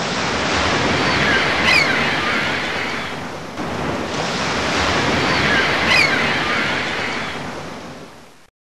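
Ocean surf: two waves wash in and draw back, each with a short high cry over it, the second fading out near the end.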